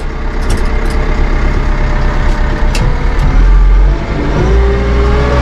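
Massey Ferguson 2850M hydrostatic compact tractor's diesel engine running as the tractor is put in gear and pulls away, heard from inside the cab. A low rumble swells briefly just past three seconds, then a steady whine comes in, rising slightly.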